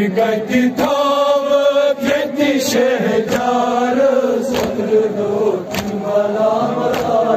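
A man's voice chanting a Kashmiri noha (Shia mourning lament) over a microphone and loudspeaker. Sharp thuds come about once every second or so, in time with the chant: mourners beating their chests (matam).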